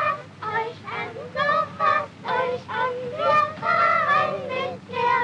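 A group of young children singing a song together in high voices, on an old film soundtrack with a low steady hum beneath.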